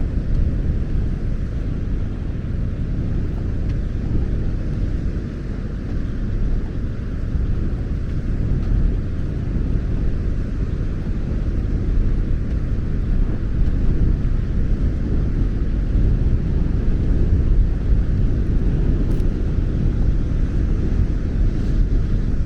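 Strong wind rumbling over the microphone, with North Sea surf washing in steadily beneath it.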